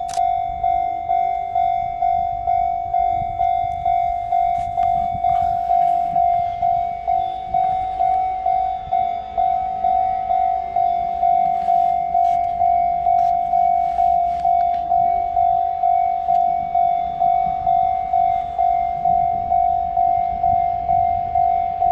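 Railway level-crossing warning bell ringing, a single bright tone struck about twice a second without a break.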